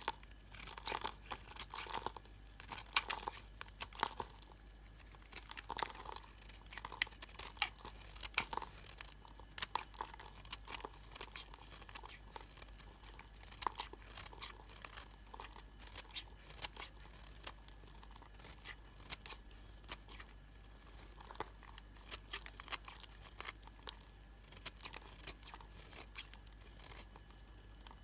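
A blade cutting through old bar soap, making a dense, irregular run of small crackles and crunches.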